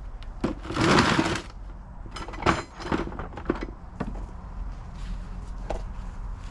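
A short rushing scrape about a second in, followed by several sharp knocks and clatters, over a steady low rumble.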